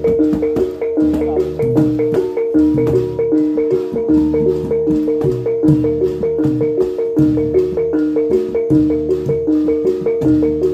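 Live Javanese gamelan music for jatilan/reog dance. Bronze kettle gongs and metallophones repeat a short two-note pattern over an even beat of sharp strikes, with low gong tones underneath.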